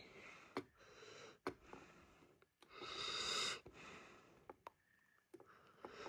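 Faint breathing through the nose close to the microphone, the loudest breath about three seconds in, with a few short soft clicks of buttons being pressed on the garage door opener's wall control.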